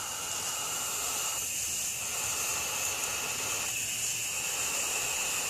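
Smashed, still powered-on television giving off a steady hiss with a high-pitched whine.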